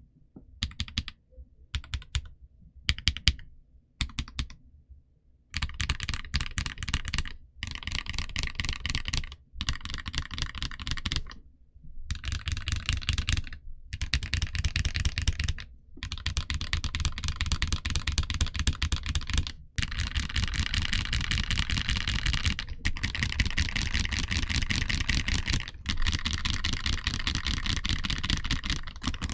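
Typing on a KBDcraft Israfel #7 split ortholinear keyboard, built stock with Kailh Depth Charge low-profile switches. A few scattered keystrokes come first. From about five seconds in the typing is fast and steady, broken by several short pauses.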